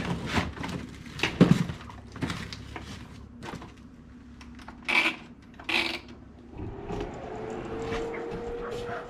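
Handling knocks and rubbing as stiff motocross boots are pushed onto the hoses of a Kendall wall-mount boot dryer. A couple of sharper clicks follow, then, about two-thirds of the way in, the dryer's fan starts with a steady hum whose pitch rises slightly.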